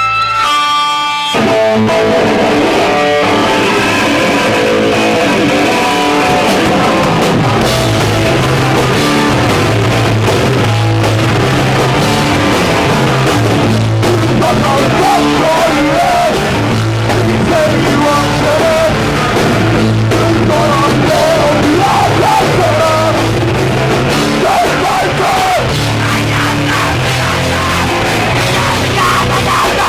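Hardcore punk band playing live, with guitar, bass and drums at full volume. The full band comes in about a second and a half in, after a brief held note.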